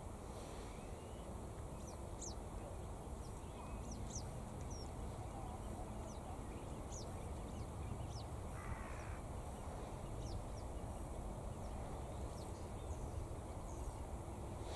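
A crow caws once, about nine seconds in, over a steady low background rumble, with short, high chirps from small birds scattered throughout.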